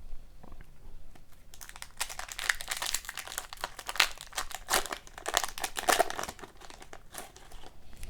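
Crinkling and rustling of a trading card pack wrapper being handled and torn open, in dense crackly bursts about a second and a half in that die away near the end.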